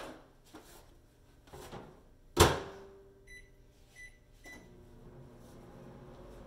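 Countertop microwave oven: its door is shut with a loud bang about two seconds in, three keypad beeps follow, and then the oven starts running with a steady low hum.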